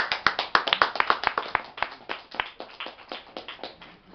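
A small audience applauding, with hand claps starting all at once and thinning out over about four seconds.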